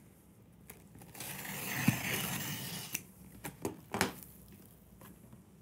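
Box cutter slicing through the packing tape along the seam of a cardboard shipping box for about two seconds, followed by a few light knocks of cardboard as the lid is lifted.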